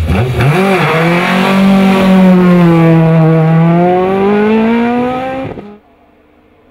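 Race-tuned Peugeot 306 GTI hillclimb car's engine revving hard off the start line. A quick rev blip comes first, then a high steady note that dips slightly and climbs again as the car pulls away. The sound cuts off abruptly near the end, leaving only faint background.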